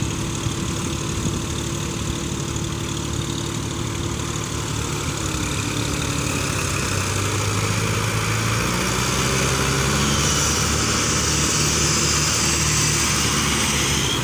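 Diesel tractor engines running under load as a tractor works through deep paddy-field mud. The engine note shifts and grows louder about halfway through as the tractor is driven harder.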